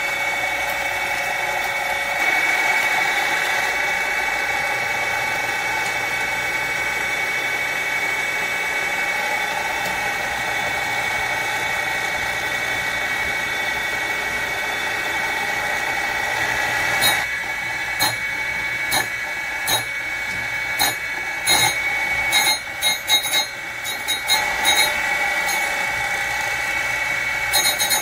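Surface grinder running, its spinning grinding wheel and the shop's phase converter making a steady multi-tone whine. From about two-thirds of the way in, short crackling bursts come irregularly, about one a second, as the wheel starts touching the work.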